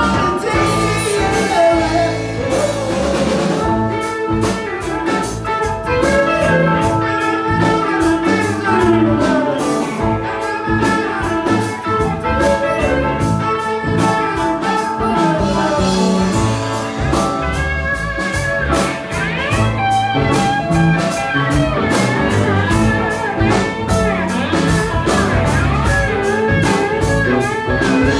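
Live band playing: electric guitars, Hammond organ and drum kit, with a steady drum beat throughout.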